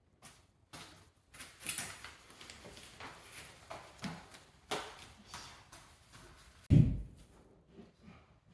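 Woodworking handling noise: irregular scrapes and light knocks of wooden parts being moved, with one heavy thump near the end.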